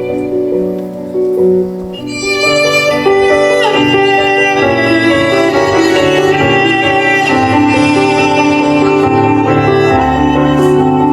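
Solo cello bowed in slow, sustained notes. About two seconds in the playing grows louder and fuller and stays so.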